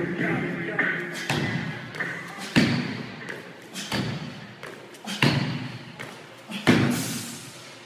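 Thuds of feet landing during repeated box jumps onto a wooden plyo box and back down to the rubber gym floor: five sharp thuds at a steady pace, about one every second and a quarter.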